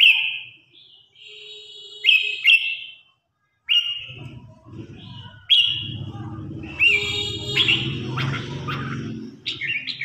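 Red-whiskered bulbul singing: a run of short, loud whistled phrases every second or two. A low background rumble runs under the song from about halfway to near the end.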